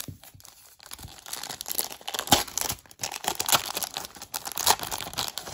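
Plastic wrapper of a 1992 Score baseball card pack being torn open and crinkled by hand: dense crackling from about a second in, with a few sharp, loud tears.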